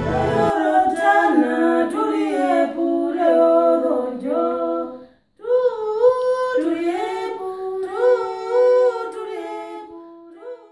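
Several voices singing unaccompanied in harmony, a cappella, moving together in short gliding phrases, with a brief pause about five seconds in.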